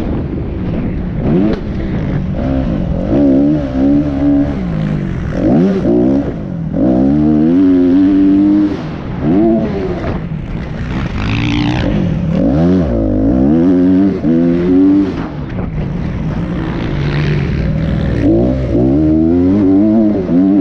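Dirt bike engine heard from on board while riding a motocross track, its pitch climbing and dropping over and over as the throttle opens and closes.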